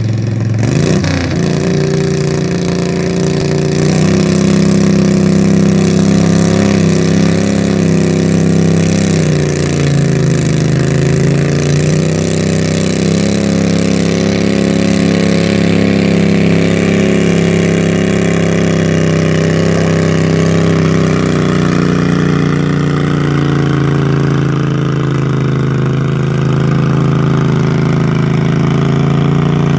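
Stock V-twin garden tractor engine running hard while pulling a weight sled. It revs up about a second in, dips in pitch around ten seconds in and recovers, then holds a steady drone.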